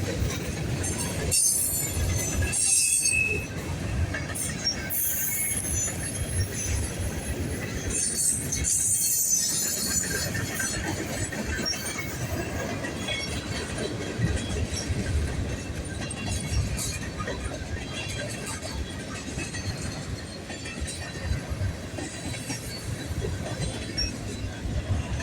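Long freight train's cars rolling past with a steady rumble and clatter of steel wheels on rail. High wheel squeals come and go during the first ten seconds or so.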